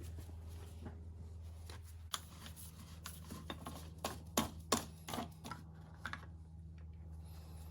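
A series of light clicks and knocks, as of plastic caps and parts being handled in an engine bay, over a steady low hum.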